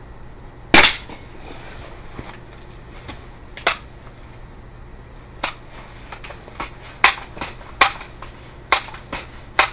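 A break-barrel air rifle fires once about a second in, a single sharp crack with a short ring after it. Later comes a lone click, then a run of sharp metallic clicks over the last few seconds as the rifle's barrel is broken open and cocked for the next shot.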